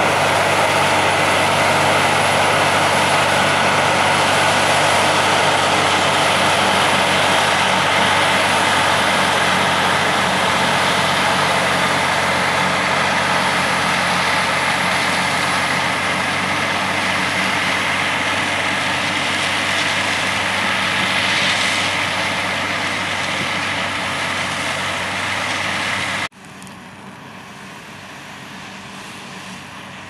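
Claas Jaguar forage harvester and John Deere tractor running together while chopping and blowing corn silage into a wagon: a loud, steady machinery drone with engine tones under it. About 26 seconds in the sound drops abruptly to a much quieter, steady machine sound.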